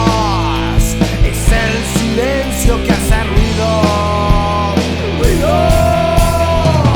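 Rock band music without singing: drums hitting regularly over a steady bass, with a lead line that bends in pitch and then holds one long note near the end.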